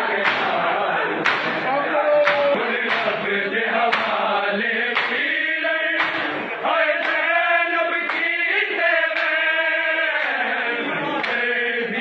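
A group of men chanting a Shia noha (mourning lament) in unison, the voices held in long sung lines. Sharp slaps of hands on bare chests (matam) keep a beat about once a second.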